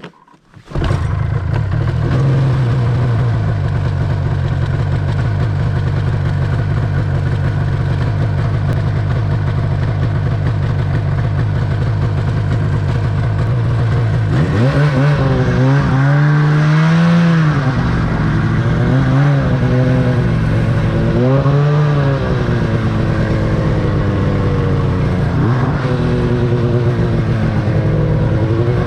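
The two-stroke twin engine of a 2008 Arctic Cat F1000 Sno Pro snowmobile running. It cuts in suddenly about a second in and holds a steady pitch, then from about halfway it revs up and down several times as the throttle is worked.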